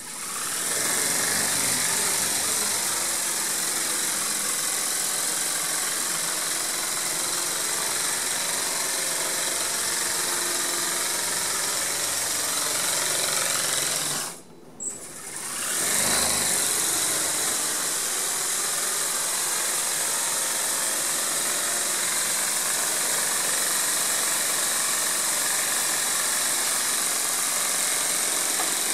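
Flapping-wing robotic hummingbird buzzing steadily in hovering flight, a loud mechanical whir with a strong high hiss from its drive and wings. The sound drops away briefly about halfway through, then returns at the same level.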